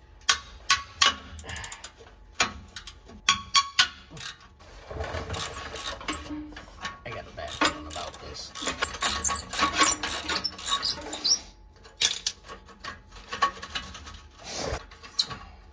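Hand ratchet wrench clicking in quick runs with short pauses, backing a long-threaded bolt out of a steel exhaust pipe clamp.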